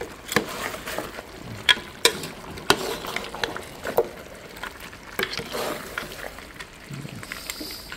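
Long metal spoon stirring chunks of mutton in a large aluminium pot, clinking and knocking irregularly against the pot's sides, over a low sizzle of the meat frying.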